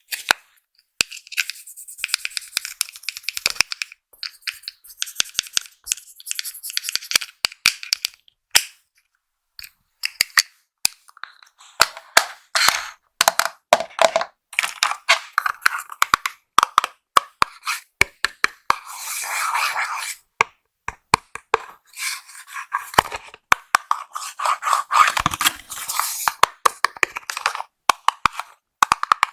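Hands unboxing makeup items: packaging crinkling and scraping, with many sharp clicks and taps.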